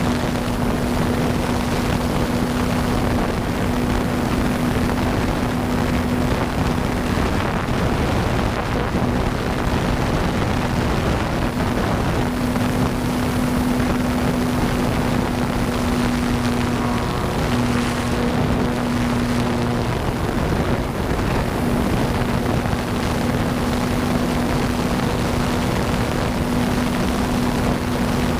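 Electric motor and propeller of an Avios Grand Tundra RC plane in flight, a steady hum that fades out twice for a few seconds as the plane flies around. A loud rush of wind on the microphone runs under it.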